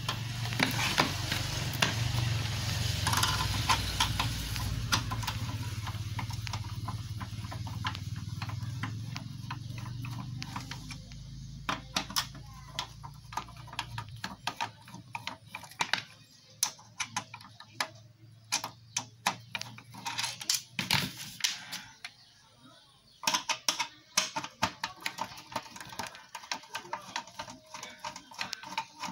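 Screwdriver turning out the small screws on an amplifier's steel rear panel: a run of irregular small metallic clicks and scrapes, densest in the second half. A low steady rumble in the background fades out about halfway through.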